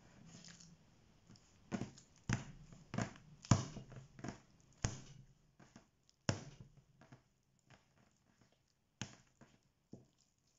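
Sticky bread dough being kneaded by slap and fold: it is lifted, slapped down onto a metal board and folded over. About eight sharp, irregular slaps start about two seconds in, the loudest about three and a half seconds in, with soft sticky, tearing noises between them.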